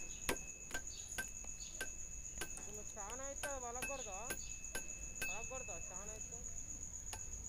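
Faint steady high-pitched whine with light regular ticks about twice a second, and faint voices in the background around three and six seconds in.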